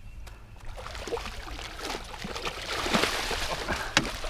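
Water splashing and sloshing as a hooked channel catfish thrashes at the surface and is scooped into a landing net. It builds to its loudest about three seconds in, with a single sharp knock near the end.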